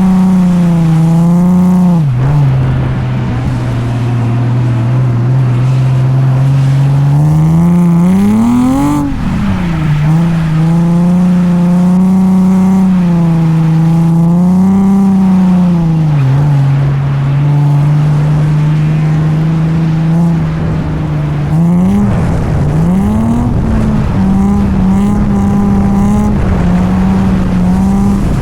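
Drift car engine under hard driving, held at high revs with the pitch wavering. The revs drop and climb again several times, with a sharp rev rise and fall about a third of the way in and another climb near the end.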